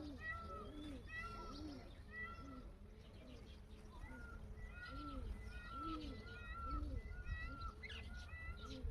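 Indian peafowl calling in two runs of short, arched, rising-and-falling calls, about two a second, with a pause of a second or two between the runs. Small birds chirp faintly behind.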